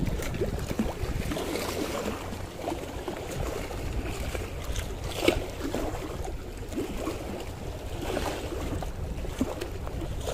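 Wind buffeting the microphone with a low, uneven rumble, over small waves lapping against a concrete seawall. One short, sharper sound about halfway through.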